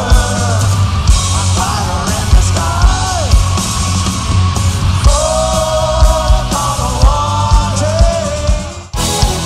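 Rock music with singing, electric guitars and a steady drum beat. Near the end the music drops away for a moment and cuts abruptly into a new passage, as between excerpts in a medley.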